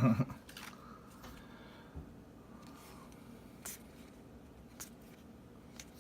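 Baseball trading cards being handled and flicked through, giving a few light separate clicks over quiet room tone.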